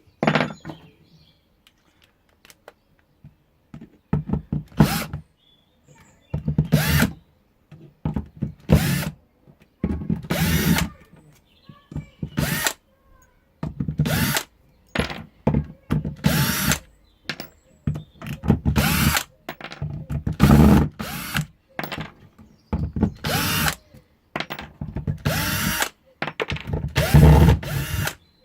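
Power drill-driver backing screws out of a wooden former, in about a dozen short bursts of a second or less, the motor pitch rising and falling with each squeeze of the trigger, with brief pauses between.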